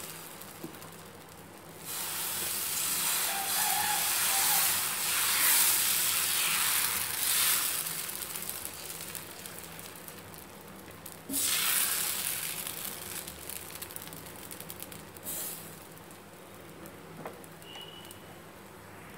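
Dosa batter sizzling on a hot nonstick tava as it is poured and spread in circles with a ladle. The sizzle comes in waves, loudest from about two to eight seconds in, with another sudden burst about eleven seconds in. It then settles to a faint hiss as the dosa cooks.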